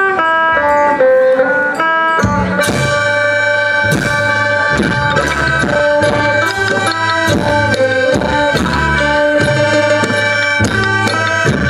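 Isan traditional band music: a plucked phin-lute melody plays alone, then about two seconds in drums and a bass join with a steady beat under held drone notes.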